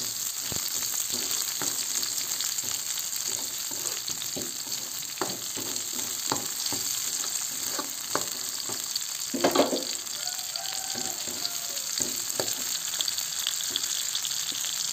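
Shallots, garlic and chilies sizzling in hot oil in a metal wok, with a metal spatula repeatedly scraping and knocking against the pan as they are stir-fried; one louder clatter of the spatula comes about two-thirds of the way through.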